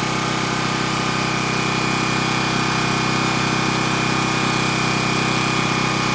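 Champion portable generator's single-cylinder four-stroke engine running steadily at an even speed, freshly started on its first run.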